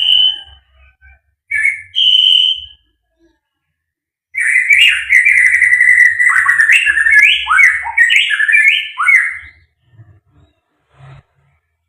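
White-rumped shama singing: two short whistled notes, then a loud, rapid phrase of varied whistles sliding up and down lasting about five seconds, followed by a few faint clicks.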